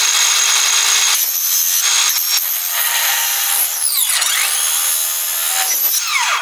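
DeWalt 20V XR cordless circular saw cutting lengthwise through a corrugated polycarbonate greenhouse panel, running steadily with a loud, harsh, high-pitched rasp. In the last two seconds its whine sweeps down and up, then the sound cuts off suddenly.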